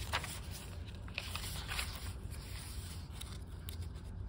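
Paper pages of a handmade junk journal being turned by hand, rustling and sliding, with several short crinkles.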